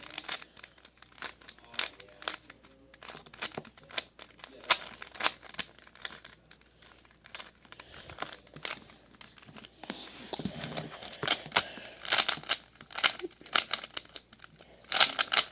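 Plastic Rubik's Cube being turned by hand: quick, irregular clicks and clacks of its layers rotating, several a second.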